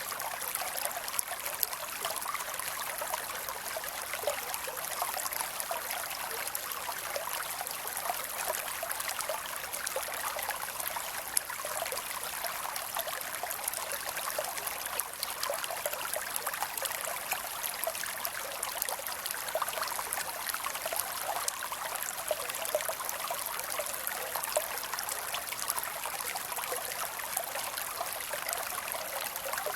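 A small creek flowing steadily, its water trickling and splashing over rocks in many small, quick splashes.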